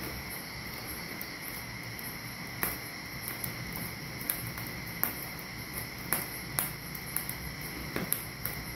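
Crickets trilling steadily in the night, with sharp pops and snaps from the wood fire burning in a drum stove as sticks are fed in, about seven of them from a third of the way in to near the end.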